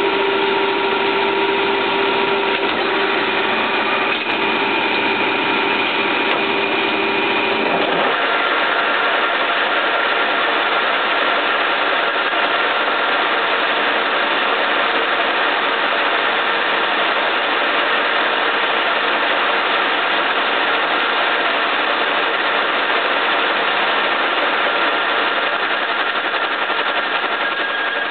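1K62 lathe running with a workpiece on its faceplate, an insert cutter turning metal: a steady mechanical noise with a whine in it. About eight seconds in, the sound changes abruptly, the low rumble dropping away and the whine shifting to a new pitch.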